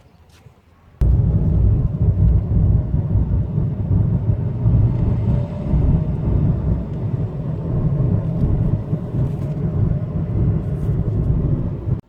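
A 2010 Toyota Yaris on the move: a loud, steady low rumble of engine and road noise that cuts in suddenly about a second in and stops abruptly at the end.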